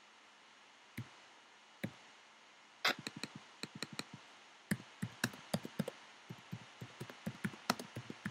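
Typing on a computer keyboard: quick, irregular runs of key clicks, after two single clicks about a second apart.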